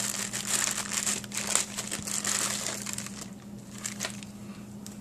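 Clear plastic zip-lock bag crinkling as hands rummage through it and pull parts out. The crinkling is dense for about three seconds, then dies down to a couple of faint rustles.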